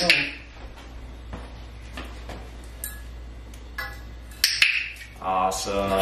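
A Catalina macaw cracking and chewing a treat in its beak: scattered sharp, crisp clicks at uneven intervals. A short flurry of wing flapping right at the start, and a man's voice near the end.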